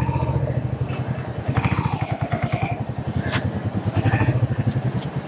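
Royal Enfield Hunter 350's single-cylinder 349 cc engine running as the motorcycle is ridden slowly, with a steady, even exhaust beat that the owner finds somewhat different from other Royal Enfields. There is one sharp click about three seconds in.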